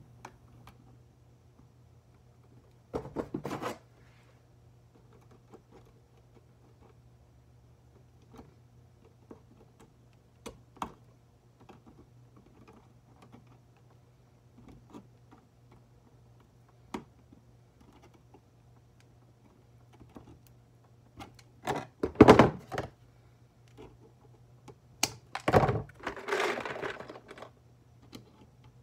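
Wire strippers taking insulation off electrical cable wires: scattered small clicks and snips as the tool bites and the wires are handled, with a few louder clattering bursts, the loudest about 22 seconds in. A faint steady low hum runs underneath.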